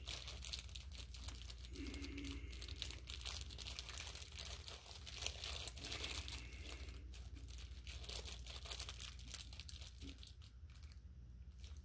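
Faint crinkling and rustling of the small plastic parts bags of a carburetor rebuild kit being handled and felt through, with irregular small clicks.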